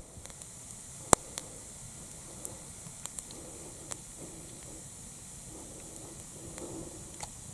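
Wood campfire burning with a steady hiss and scattered sharp crackles, the loudest about a second in.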